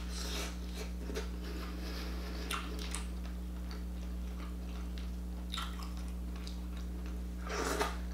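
Close-up mukbang eating sounds: chewing seafood while hands crack and pull apart a shellfish shell to get the meat out, with small wet clicks and crackles and a few louder cracks, the loudest near the end. A steady low hum runs underneath.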